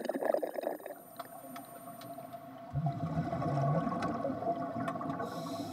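Scuba diver's exhaled bubbles gurgling underwater. A low wavering hum starts a little under three seconds in and lasts about a second, and is the loudest part.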